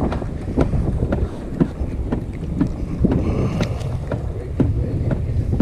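Wind buffeting the microphone on an open boat in choppy water: a steady low rumble, with short sharp slaps of chop against the hull about once a second.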